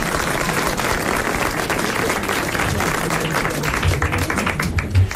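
Studio audience applauding, a dense steady clatter of many hands that holds at one level.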